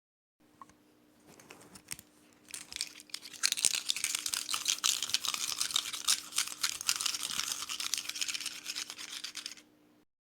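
A fast, continuous scratching or scrubbing noise with a faint steady hum underneath. It starts quietly about half a second in, grows louder after a couple of seconds and stops just before the end.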